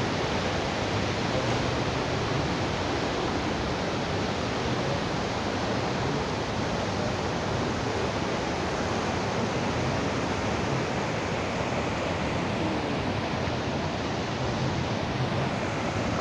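Rain-swollen, muddy river rushing fast through its channel, starting to flood: a steady, even rush of water.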